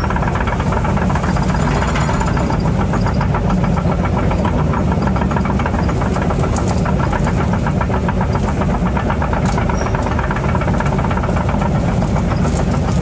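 Excavator's diesel engine running steadily at a constant pitch, with a fast, even pulsing.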